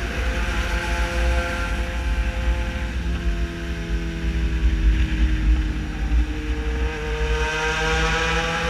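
Yamaha XJ6 Diversion inline-four with a full aftermarket exhaust running under way, with heavy low wind rumble on the microphone. The engine note sinks slowly over the first few seconds, then climbs again near the end.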